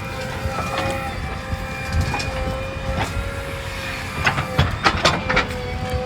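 Diesel engine of a JCB 3DX backhoe loader running, with a steady high whine over the low engine rumble. Several sharp metallic knocks come about four to five and a half seconds in.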